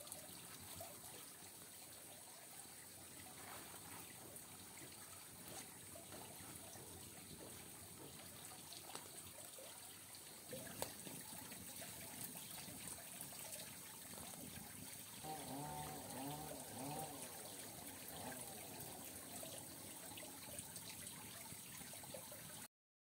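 Water trickling steadily. About fifteen seconds in comes a faint, wavering call that lasts a few seconds.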